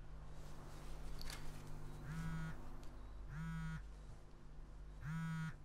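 Mobile phone vibrating with an incoming call: three buzzes of about half a second each, roughly a second apart. A faint rustle and a click come about a second in.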